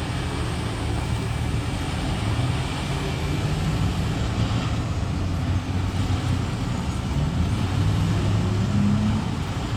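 A heavy vehicle engine running steadily under general traffic noise, its pitch rising briefly about two seconds in and again near the end.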